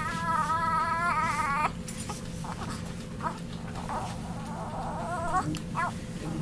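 Newborn baby crying in short fussy wails: one cry lasts about two seconds and rises in pitch at its end, and a weaker one follows a few seconds later.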